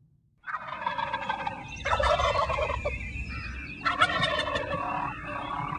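Tom turkey gobbling: three rattling gobbles in a row, starting about half a second in.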